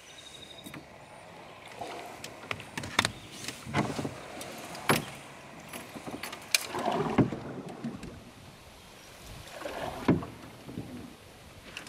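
Water sloshing and lapping against a canoe hull in soft swells, with a few sharp clicks and knocks scattered through.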